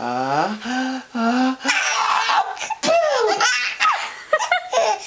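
Six-month-old baby belly-laughing in repeated high-pitched bursts, set off by a pretend sneeze. A lower adult voice draws out a sound in the first second and a half before the laughter starts.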